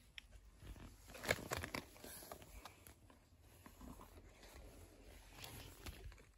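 Quiet truck-cab room tone with faint rustling and clicking handling noises, a short cluster of louder crackles about a second and a half in; the engine is not running.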